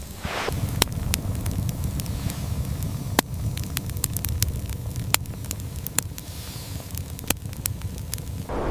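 Fire crackling, with irregular sharp snaps and pops over a low steady rumble.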